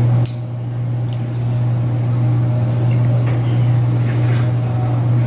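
A steady low machine hum runs throughout. Within the first second or so, two short clicks come as a raw egg is tapped and cracked open into a bowl of eggs.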